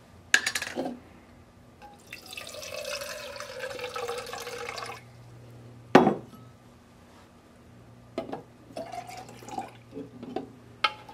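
Lemonade poured from a bottle into a plastic measuring cup for about three seconds, a sharp knock about six seconds in, then the lemonade poured from the cup into a stainless steel cocktail shaker in a broken trickle with small clinks.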